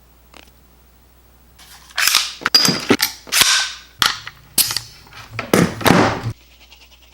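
Nail gun firing a run of nails into thin plywood: about eight sharp shots, roughly half a second apart, starting about two seconds in.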